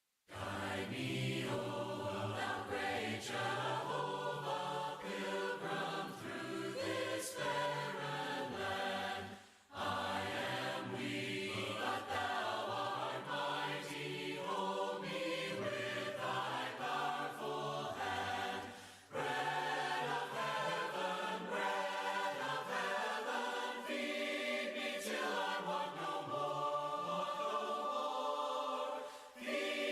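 A choir singing a hymn a cappella, with two short breaks about ten and nineteen seconds in.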